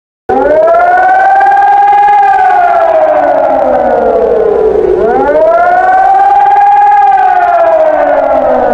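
German civil defence siren wailing: the tone cuts in suddenly, rises quickly, holds, then slowly falls, and the rise-and-fall repeats about every five seconds. This up-and-down wail is the public warning signal.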